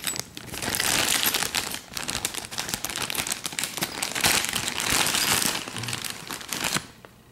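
Clear plastic bag crinkling as it is squeezed and turned in the hand, with spent brass cartridge casings clicking against each other inside. The handling stops near the end.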